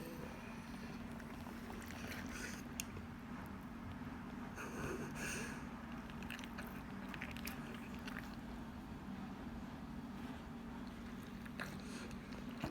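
A sleeping golden retriever breathing and snoring quietly, with a few soft breaths spaced seconds apart and small mouth clicks, over a steady low hum.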